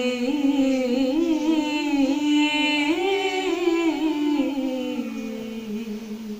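A woman's unaccompanied voice holding a long wordless melodic line of an Urdu naat, sliding up and down in pitch with vibrato, then fading out near the end.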